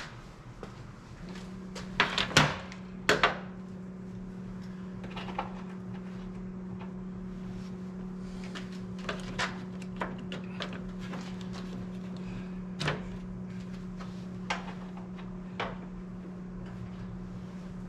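Hand tools and sockets clanking: a few loud metal clanks about two and three seconds in, then scattered lighter clicks and taps, over a steady low hum that starts about a second in.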